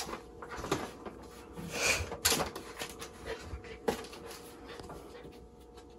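Puppy panting, with a few sharp knocks and clicks as its paws step on and off a plastic folding step stool; the loudest knock comes about two seconds in.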